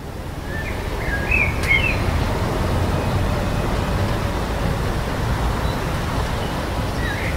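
Outdoor ambience: a steady low rumble that fades in at the start, with a few short bird chirps about a second in and again near the end.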